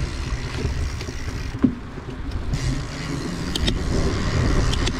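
Wind buffeting the microphone of a riding cyclist's camera, with the low rumble of bicycle tyres rolling on pavement. A sharp click about a second and a half in, and a few faint ticks near the end.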